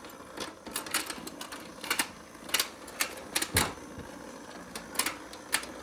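Hard plastic toys being handled: irregular sharp clicks and taps, about a dozen, a few of them louder.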